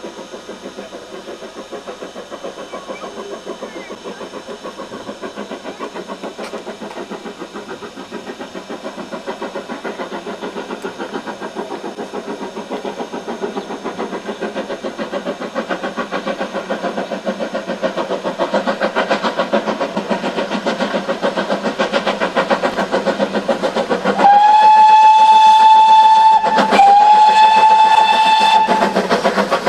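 Steam locomotive approaching with rhythmic exhaust beats that grow steadily louder. About 24 seconds in, it sounds two long whistle blasts of roughly two seconds each, with only a brief break between them.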